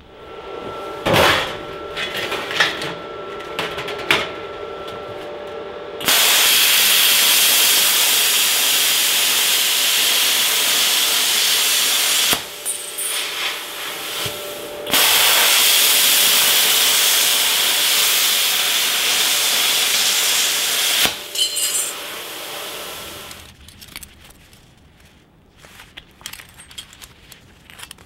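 Hitbox HBC45 air plasma cutter cutting thin sheet metal: a loud, steady hiss of the arc and compressed air in two runs of about six seconds each with a short break between, trailing off a couple of seconds after the second run. Short clicks and bursts come before the long runs, as the torch is started.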